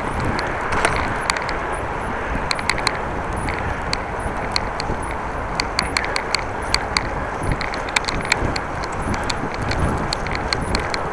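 Riding noise from a moving bicycle: a steady rush of wind and road noise, with frequent irregular sharp clicks and ticks.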